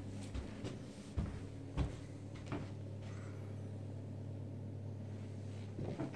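Footsteps on an indoor floor, a few knocks at walking pace that stop for a few seconds and start again near the end, over a steady low hum.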